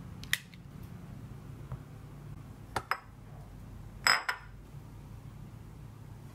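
Kitchenware set down on a stone countertop: a few light clacks, then a ceramic bowl clinking down with a brief ring about four seconds in, over a low steady hum.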